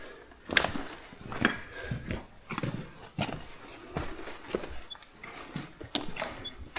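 Footsteps clunking irregularly on the rocky floor of a slate mine passage, a knock every half second to a second.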